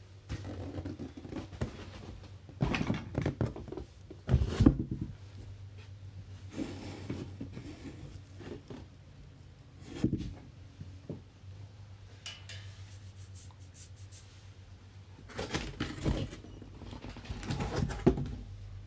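Rustling, taps and knocks of trading-card boxes and packs being handled, in several short bursts, over a steady low hum.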